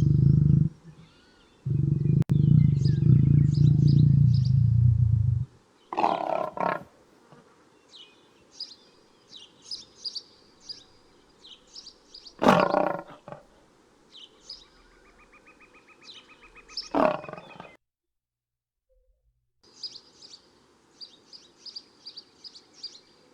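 Lion growling deeply in two long stretches over the first five seconds, then birds chirping with three short, loud animal calls in between.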